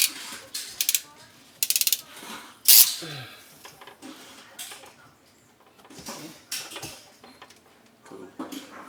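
Clicking and knocking of a hand tool being worked, with quick runs of ratchet-like clicks about one and two seconds in and a louder knock soon after.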